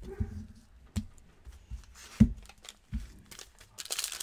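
A few dull thumps as cards and packs are handled on the table, the loudest about two seconds in. Near the end, the crinkle and tear of a cellophane-wrapped trading card pack being opened.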